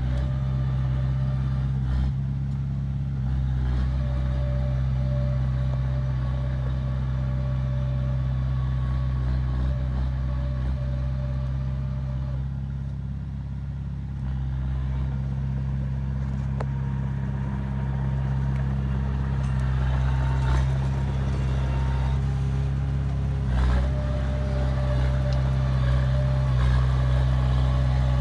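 Diesel engine of heavy earthmoving machinery running steadily, with a few sharp knocks and clanks along the way.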